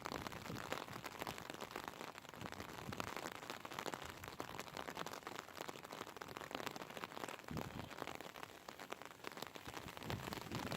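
Rain falling, heard as a dense, steady patter of many small drop impacts.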